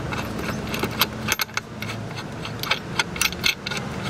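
Irregular metal clicks and clinks as a loosened nut and a deep socket are worked off an outboard motor's transom mounting bolt by hand, about nine sharp ticks spread over a few seconds.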